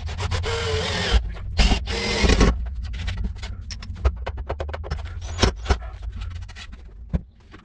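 Cordless drill-driver driving a screw into a sapelli plywood plate: the motor runs for about two and a half seconds, its pitch dropping as the screw bites. Scattered clicks and knocks of handling follow over a steady low hum.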